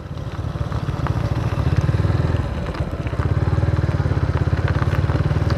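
Motorcycle engine running under way, with a steady rapid exhaust pulse. The throttle eases off briefly about two and a half seconds in, then picks up again.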